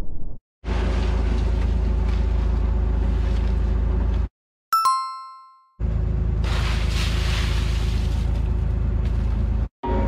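Steady engine drone on a fishing boat's deck, cut off abruptly by edits. In the gap near the middle a single bright chime sound effect rings and fades over about a second.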